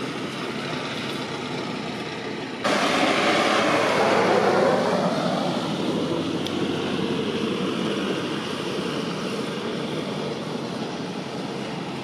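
Jet engines of a Boeing 787 airliner running on the runway, a steady rushing roar. About two and a half seconds in the sound jumps abruptly louder, with a slowly sweeping tone through it, then gradually eases off.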